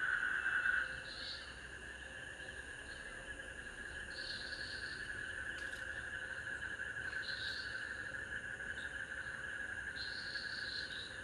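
Insects chirring: a steady buzzing drone with a softer, higher chirp every few seconds. It gets quieter about a second in and then holds steady.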